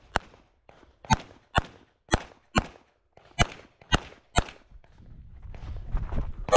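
Pistol shots from a 9mm major open-division race gun: eight shots in about four and a half seconds, mostly fired as pairs about half a second apart. After a break of about two seconds, one more shot comes at the very end.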